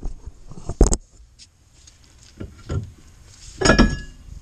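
Front brake rotor being worked off the wheel hub and its studs: a sharp knock, a couple of light knocks, then a loud metallic clank near the end with a short ring after it.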